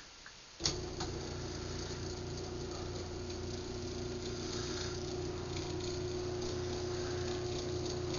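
A click, then a Craftsman garage door opener's motor starts about half a second in and runs steadily with a hum and faint fast ticking, cycling the opener by remote.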